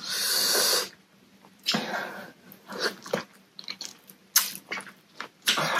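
A person eating shredded green papaya salad close to the microphone: several separate bursts of biting and chewing.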